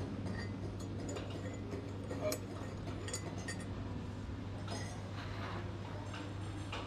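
Quiet coffee-shop background: a steady low hum with light clinks of glass mugs and cups now and then, the loudest a little over two seconds in.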